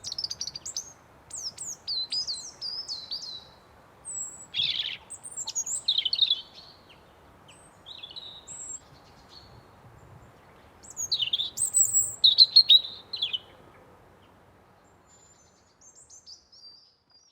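Small birds chirping and singing in quick bursts of short, sliding notes, busiest in the first half and again around the middle, over a faint steady rush of wind in trees. The wind fades away near the end, leaving a few thin chirps.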